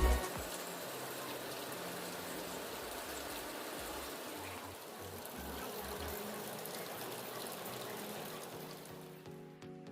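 Steady rush of flowing water, fading near the end, with faint low music notes underneath.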